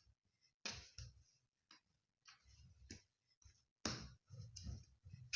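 Hands kneading soft, sticky doughnut dough on a work surface: irregular soft slaps and thuds with tacky clicks as the dough is pressed, stretched and lifted.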